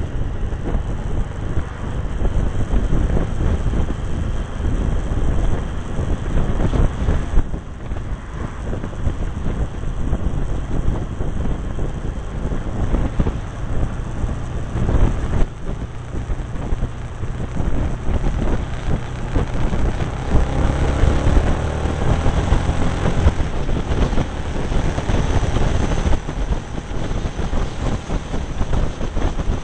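Wind buffeting the microphone over a Cagiva Navigator's V-twin engine running at road speed. About two-thirds of the way through, the engine note rises briefly as it accelerates.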